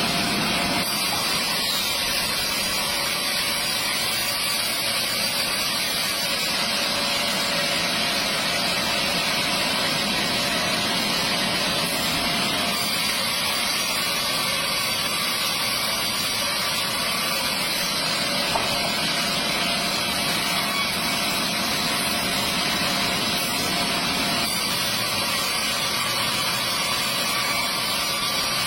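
Stihl chainsaw running steadily at full throttle under load, held at an even pitch as it rips lengthwise through a large log on a chainsaw mill.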